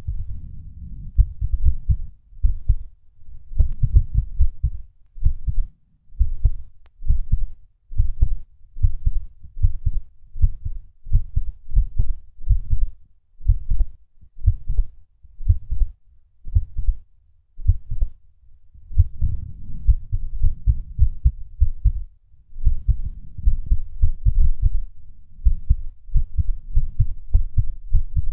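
A man's heartbeat: repeated low thuds in an uneven rhythm, broken now and then by short pauses: skipped beats.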